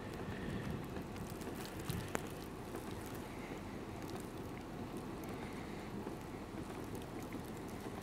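Steady wind noise in a snowstorm, with faint ticks scattered through it and one sharper click about two seconds in.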